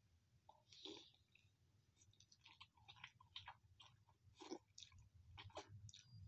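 Faint chewing of a mouthful of instant noodles, with scattered soft wet clicks and smacks of the mouth.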